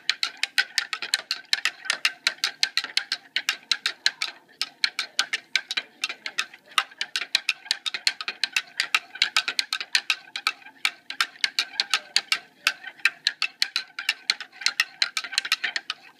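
A spoon clinking rapidly against the inside of a glass as a drink is stirred, about six or seven clinks a second with a couple of brief pauses.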